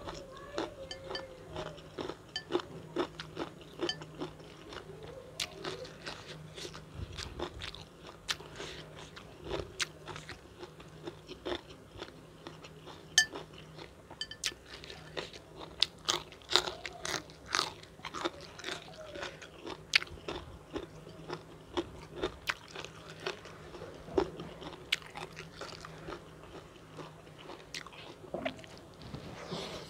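A person eating close to the microphone: irregular crunchy bites and wet chewing of fried chicken with raw long-bean and chili sambal.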